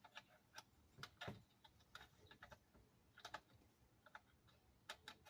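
Faint, irregular clicks and light knocks of plastic wiring connectors and the radio being handled while the antenna and harness plugs are connected to a car radio.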